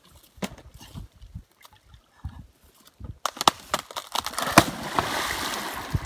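A few sharp knocks and cracks, then from about four seconds loud splashing and churning of pond water as a dead tree trunk, broken off at its stump, falls into the pond.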